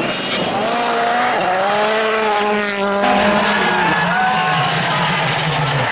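World Rally Car engine revving hard at speed, its pitch climbing and then dropping several times through gear changes as the car passes.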